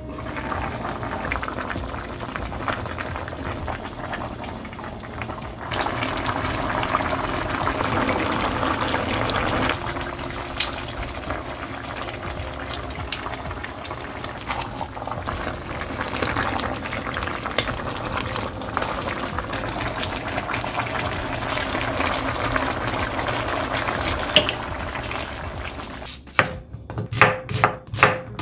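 A pot of braised short ribs (galbi-jjim) bubbling and crackling as it simmers. Near the end a knife starts chopping on a cutting board, about three strokes a second.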